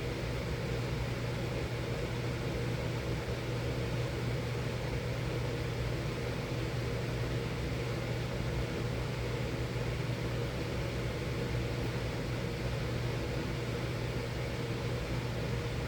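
Miller E3 furnace running steadily: a constant low hum over an even airy hiss, with no change in level.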